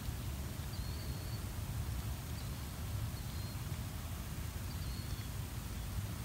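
Steady hiss of falling rain over a low rumble, with several short, high chirps from a bird scattered through it.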